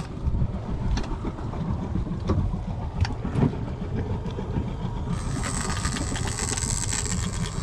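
Wind and water noise on a small boat, with a low rumble and a few short knocks. About five seconds in, a high buzz with rapid fine ticking comes in and runs on.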